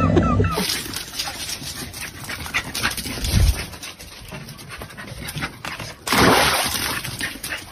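Dog panting and moving about, then a loud splash about six seconds in as a dog leaps into a plastic paddling pool.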